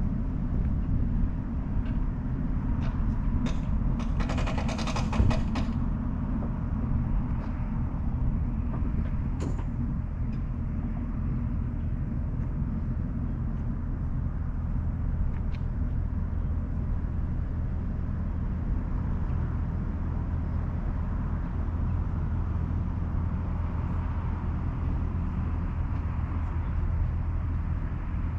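A vehicle engine running steadily at low revs while backing a boat trailer down a ramp. About four seconds in there is a brief high-pitched squeal lasting under two seconds, with a few light clicks here and there.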